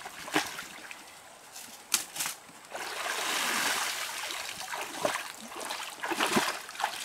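Water splashing in a shallow stream: a few sharp splashes, then a rush of water streaming off a woven basket as it is lifted out of the water about three seconds in, then splashing steps as she wades through the shallows near the end.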